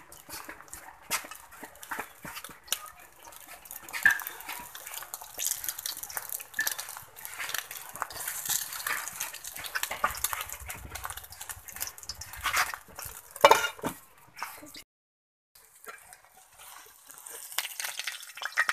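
Egg frying in hot oil in a stainless steel pan, sizzling and popping, with a few clinks and scrapes of a metal spatula against the pan. The sound cuts out briefly about 15 seconds in.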